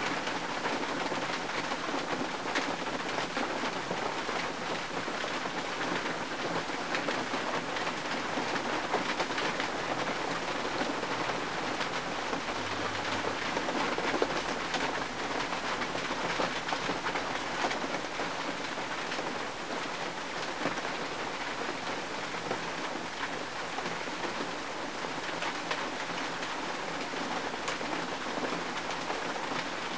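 Steady rain pattering on the windshield of a 1951 Mercury, heard from inside the car: a dense, even patter of countless small drop impacts.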